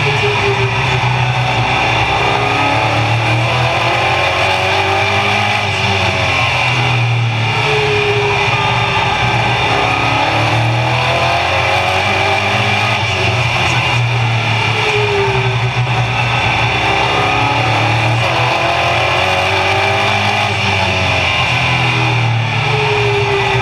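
Oval-track race car engine heard from inside the cockpit at racing speed. It runs loud and steady, its pitch climbing on each straight and falling off into each turn, a cycle of about eight seconds that repeats about three times, over constant wind and drivetrain noise.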